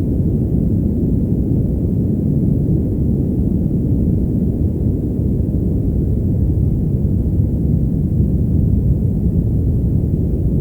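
Steady brown noise: an even, deep hiss with most of its energy in the low end and very little treble.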